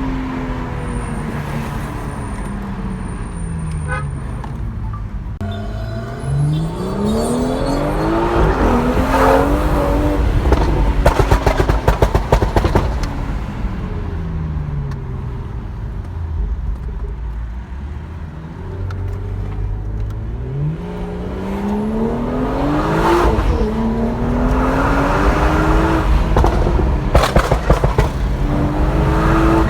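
BMW 340i's turbocharged 3.0-litre straight-six on a Stage 2 crackle tune, driven hard: the revs climb steeply, drop away as it backs off, then climb again. Clusters of sharp exhaust crackles and pops come off the throttle, about ten seconds in and again near the end.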